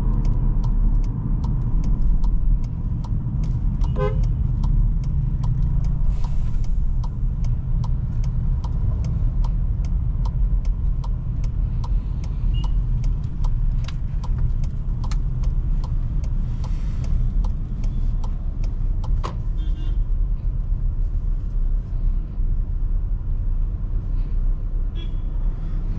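Steady low rumble of the 2024 Volkswagen Tiguan's 2.0 TSI turbocharged four-cylinder and road noise as it moves slowly in traffic. Brief car horn toots sound a few times, about four seconds in, around twenty seconds in and near the end.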